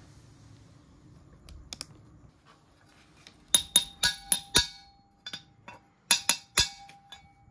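A socket used as a seal driver is tapped to seat a small oil seal in a scooter engine's aluminium magneto cover. The sharp metallic taps come in two quick runs: about five in the first, a handful more a little later. A faint ring lingers after the taps.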